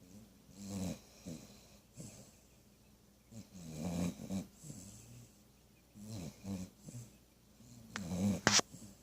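Snoring: slow, heavy breaths, one every two to three seconds, with a short sharp sound near the end that is the loudest.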